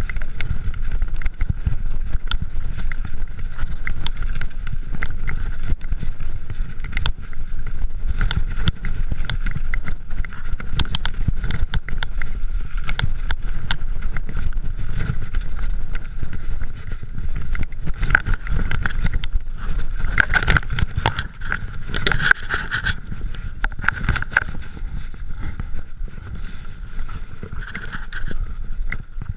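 Mountain bike riding fast down a rough, wet trail: tyre rumble, wind buffeting the microphone, and frequent rattles and knocks from the bike striking rocks and roots.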